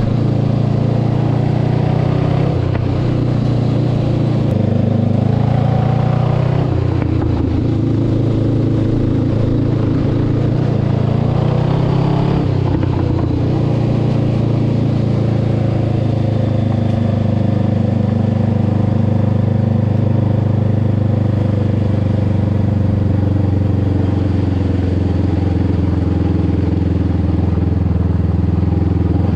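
Honda CB500X's parallel-twin engine running under way on a gravel road. The engine note rises and falls a few times in the first dozen seconds, then holds steady.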